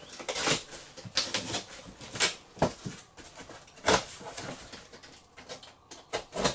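Taped cardboard box being opened by hand: packing tape cut and pulled off and the cardboard flaps worked loose, heard as a run of short, irregular scraping and rustling strokes.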